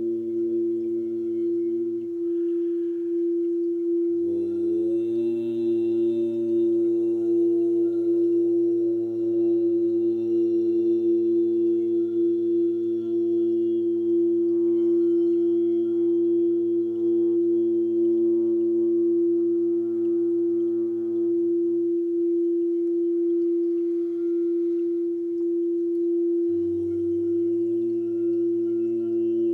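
Layered sung drone of the seed syllables 'Lam' and 'Om', one steady tone held throughout. A second stack of voices slides up into a held note about four seconds in, drops out after about twenty seconds, and slides in again near the end.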